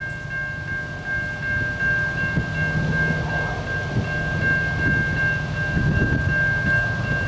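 Low rumble of a diesel-hauled freight train's locomotives, building slightly a couple of seconds in, under a steady high ringing tone.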